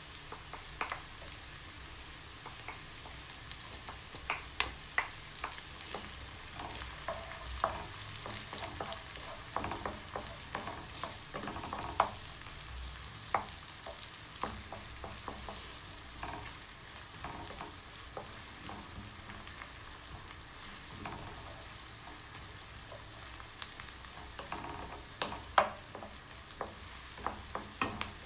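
Chopped onions sizzling in hot fat in a nonstick wok: a steady frying hiss. Over it come repeated knocks and scrapes of a wooden spatula stirring against the pan, in bunches.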